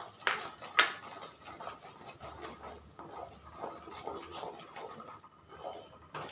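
Wooden spatula stirring bubbling jaggery syrup in an aluminium kadai, scraping and knocking against the pan in a run of strokes about three a second, with two sharp knocks in the first second. The syrup is being cooked down for sesame balls and is not yet at the firm stage.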